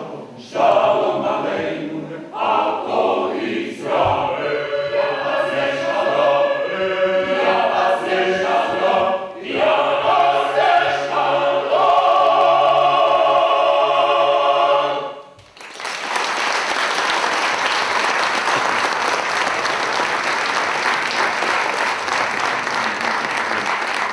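Mixed choir singing held chords, ending about fifteen seconds in; an audience then applauds.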